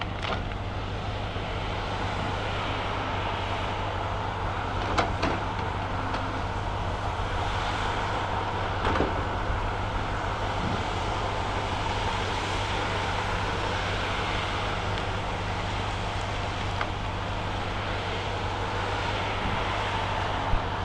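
Diesel engine of a Cat 568 shovel logger running steadily under work, with a few sharp knocks about five seconds in, again around nine seconds and near the end.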